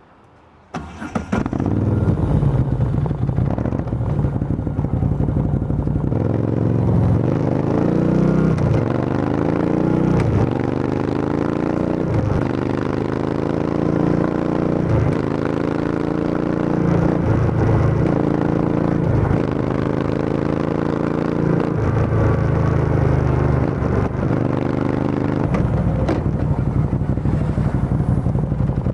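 Motorcycle engine with an Arrow full exhaust system, dB killer removed, starting about a second in and then revved repeatedly, its pitch climbing and dropping back every second or two.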